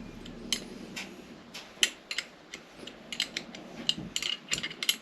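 Irregular light metallic clicks and clinks, about fifteen to twenty short sharp taps in all, from hand tools and small metal engine parts being handled on the bench.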